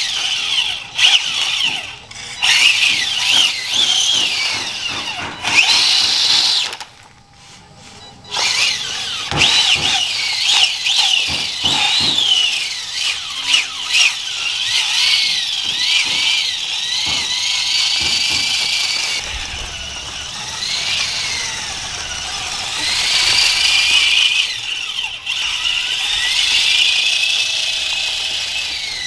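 Electric drive motor and gears of a radio-controlled bus chassis whining. The pitch rises and falls repeatedly as the chassis speeds up and slows down, with a short lull about seven seconds in.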